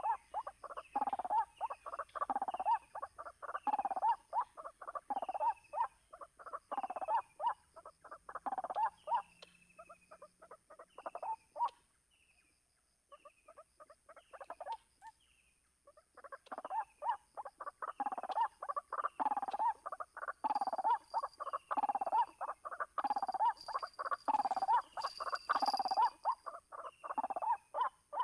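White-breasted waterhen calling, a fast run of repeated harsh 'kwak' notes at more than one a second. The calls drop away and come faintly for several seconds midway, then resume.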